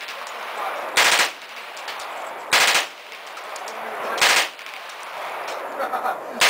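Fully automatic gun firing short bursts of rapid shots, each about a third of a second long, three in a row about a second and a half apart, with a fourth starting right at the end.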